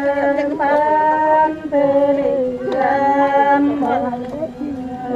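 Women singing unaccompanied in long held notes, a low steady voice under a higher one that moves between pitches, as in a traditional folk song.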